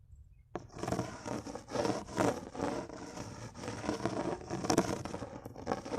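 Running water splashing and gushing in uneven surges, the flow unsteady. It starts suddenly about half a second in and cuts off abruptly at the end.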